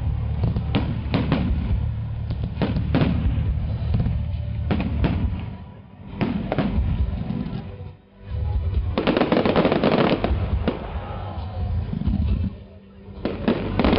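Aerial firework shells bursting in quick succession, a string of sharp bangs. After short lulls there is a dense, continuous run of bursts about nine seconds in, and a fresh run of bangs near the end.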